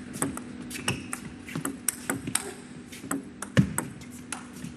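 Table tennis rally: the plastic ball clicks sharply off rubber-faced bats and the table in quick alternation, a few hits a second. One harder stroke lands about three and a half seconds in.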